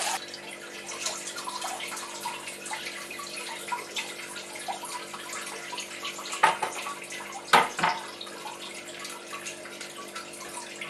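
Blackberry wine must draining through a straining bag and colander into a plastic fermentation bucket: a faint steady trickle with small drips. Three sharp knocks come about six and a half to eight seconds in as the emptied plastic bucket is handled.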